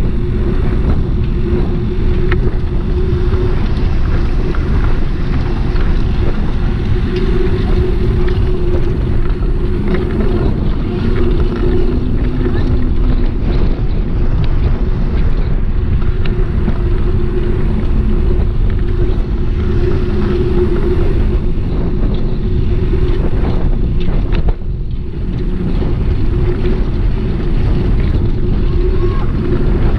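Wind rushing and rumbling over the microphone while riding a bicycle, with road noise and a hum that swells and fades underneath. The rush drops off briefly about three-quarters of the way through.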